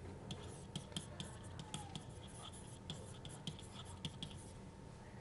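Faint, irregular scratching and light tapping of a stylus writing by hand on a digital pen tablet, over a low steady hum.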